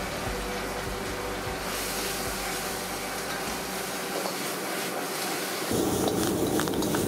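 Greens stir-frying in a wok over a high gas flame: a steady hiss of frying and the burner. Near the end it gets louder as flames flare up around the tipped wok.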